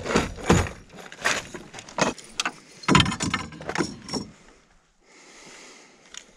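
Handling clatter in a canoe: a quick run of sharp knocks, clicks and metallic jingles as a freshly caught perch, its lure and a digital fish scale are handled. The clatter stops a little past four seconds in and gives way to a soft rushing sound.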